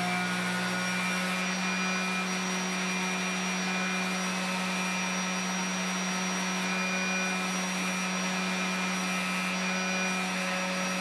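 Random orbit sander, clamped upside down as a small disc sander, running steadily with a constant hum while small wooden discs are pressed against its sanding pad to take the roughness off their sawn faces.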